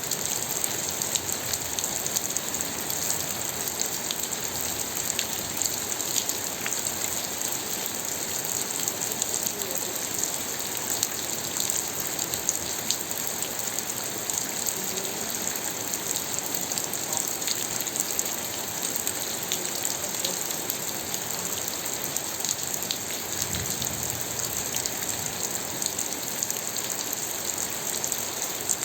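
Steady rain falling: an even hiss with many scattered drop ticks, unchanging throughout.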